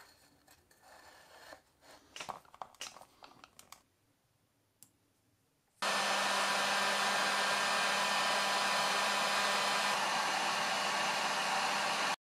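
Handheld heat gun switched on suddenly about six seconds in, blowing steadily with a low hum, aimed at heat-shrink tubing over the wire joints on a DC motor's terminals. Before it come light clicks and knocks of parts being handled.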